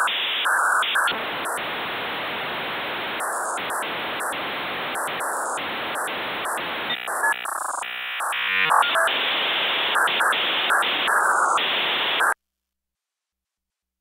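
Dial-up modem handshake: blocks of hissing static switching on and off, with a short run of warbling, fast-changing tones about eight seconds in. It cuts off suddenly about twelve seconds in.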